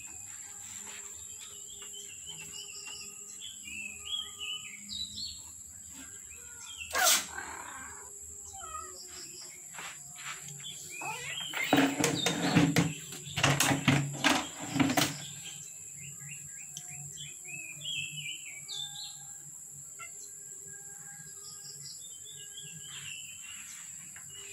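Small birds chirping in the background in short repeated runs of notes. The loudest part is a few seconds of rustling and knocking from about halfway through, after a single sharp click.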